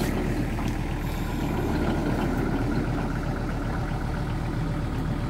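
Kubota GL46 tractor's diesel engine running steadily at an even pace.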